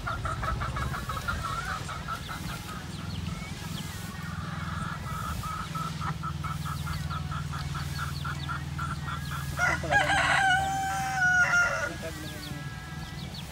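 A rooster crows once about ten seconds in, one long call of about two seconds and the loudest sound. Before it, a chicken clucks in a fast, even run, over a low steady hum.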